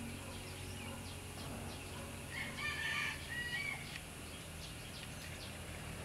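A chicken calls once, starting about two and a half seconds in and lasting a little over a second, over a faint steady background hum.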